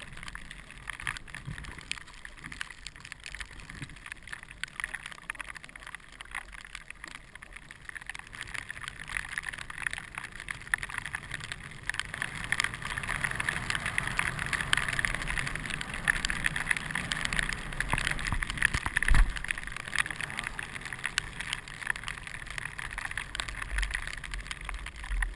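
Snow hissing and scraping under a rider sliding down a groomed ski run, louder through the middle, with one low thump about three-quarters of the way in.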